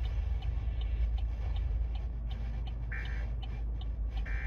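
A steady low rumble with faint, even ticking at about three ticks a second, and two short beeps a little over a second apart in the second half.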